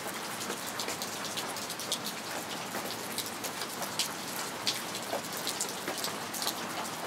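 Steady rain, with many separate drops ticking irregularly close by.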